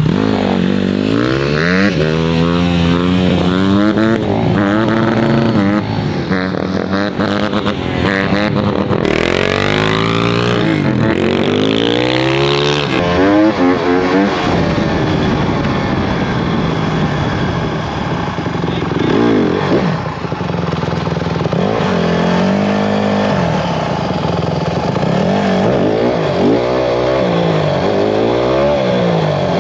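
Dirt bike engine revving up and dropping back again and again as the rider accelerates and shifts through the gears.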